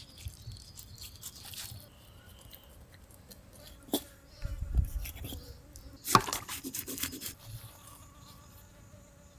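A fly buzzing steadily while skin is cut and torn from a large fish: a sharp knife click about four seconds in, a low thump just after it, and a loud rough ripping noise about six seconds in as the skin is pulled away from the flesh.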